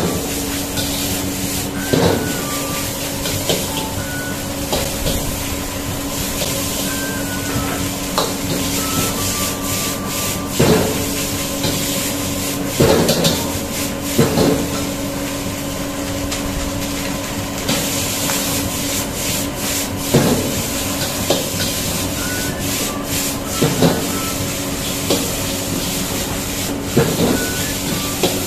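Fried rice being stir-fried in a steel wok: a metal ladle scrapes and knocks against the wok about a dozen times, every one to three seconds, over a steady hiss from the burner and the sizzling rice and a low steady hum.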